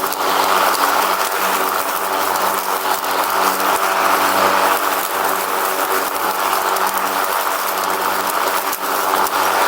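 Riding lawn mower running steadily while driving: an even engine hum under a loud rushing noise, with small clicks and rattles throughout.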